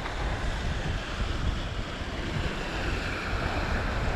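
Sea waves washing steadily on a rocky shore, with wind rumbling on the microphone.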